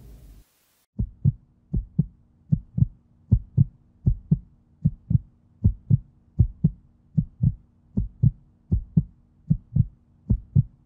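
Heartbeat sound effect: a steady double thump, lub-dub, about once every three-quarters of a second, starting about a second in over a faint low hum. It follows the fading tail of a single loud hit in the first half second.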